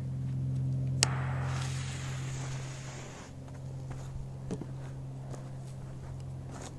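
Footsteps on loose sand, walking away from a lit firecracker, over a steady low hum. About a second in, a click is followed by an even hiss that cuts off sharply two seconds later.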